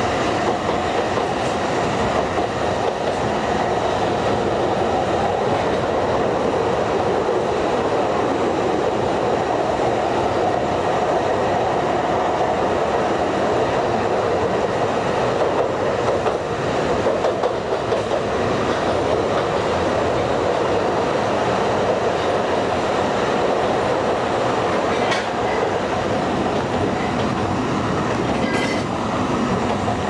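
Alishan Forest Railway narrow-gauge train running through a tunnel: a steady, unbroken rumble and rattle of wheels and carriages, with a few light clicks near the end.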